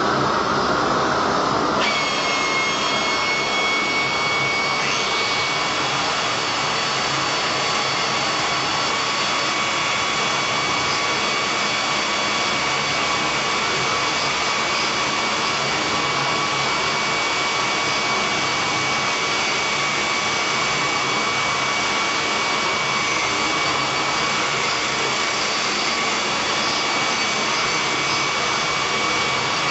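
Electric angle grinder running steadily, its disc worked against a cast bronze sculpture piece held in a vise while the piece is being cleaned up and polished. A high, steady whine sets in about two seconds in and holds.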